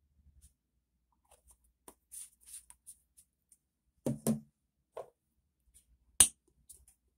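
Soft clicks and taps of plastic paint bottles being handled and set down, with two louder knocks a little over four seconds in and one sharp click about six seconds in.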